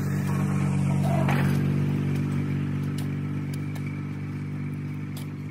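Tractor engine running at a steady speed and slowly getting quieter, with a few light clicks and scrapes of shovels in dirt.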